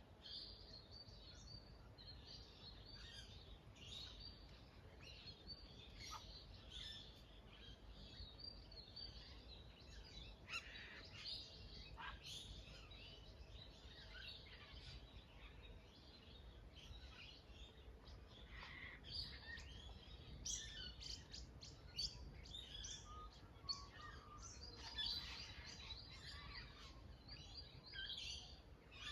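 Faint birdsong from several birds chirping and calling all through, over a low steady rumble.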